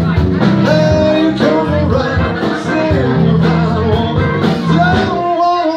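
Live bar band playing amplified rock and blues, with a driving bass line and guitar. About five seconds in, the bass drops out and held notes carry on above it.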